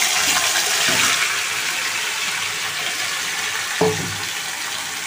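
Marinated meat and potatoes hissing loudly as they hit hot oil in an iron kadai, the sizzle easing off gradually as the oil cools under the wet masala. A single short clink of metal about four seconds in.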